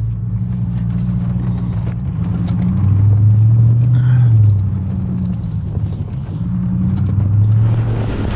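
Jeep engine running as it drives off along a trail. Its note rises and falls a little with the throttle, growing louder around the middle.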